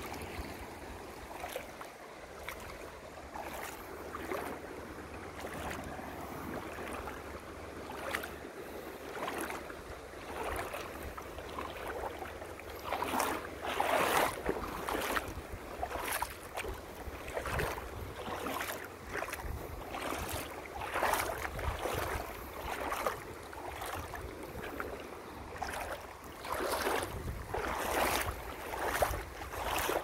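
Small sea waves lapping and splashing against shore rocks in irregular surges, with wind rumbling on the microphone.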